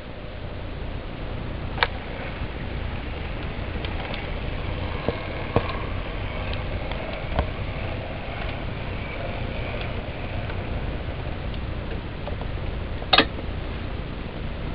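HO-scale MDC Roundhouse 0-6-0T tank locomotive running steadily along the track under its Pittman motor, a low mechanical hum with occasional sharp clicks and a louder click near the end.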